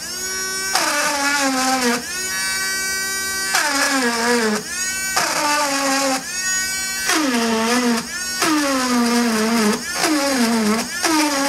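Handheld electric engraving pen running as its tip cuts into a phone case: a high whine that drops in pitch and jumps back up about once a second, stroke after stroke.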